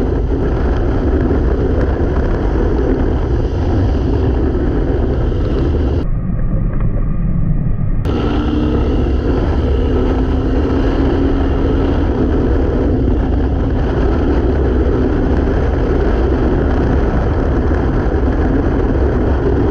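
Harley-Davidson Dyna's V-twin engine running at highway speed under heavy wind rush on the handlebar-mounted camera, loud and steady. About six seconds in it turns duller for two seconds at a cut, then a steady hum joins for a few seconds.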